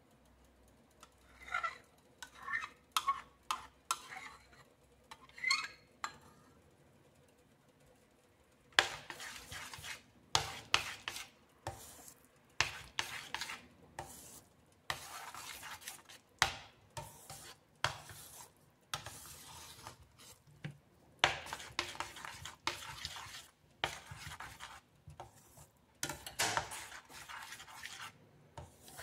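Metal spoon stirring and scraping a thick mashed-squash mixture in a stainless steel pan, in quick, uneven strokes from about nine seconds in. Before that comes a handful of light clinks.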